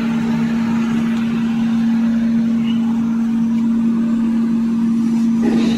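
Kitchen paper towel converting machine running: a steady mechanical hum with one strong, unbroken drone.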